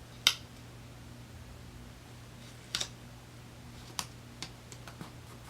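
A few short, sharp taps and clicks from handling planner stickers and pages on a desk, about five in all, the first the loudest. A faint steady hum runs underneath.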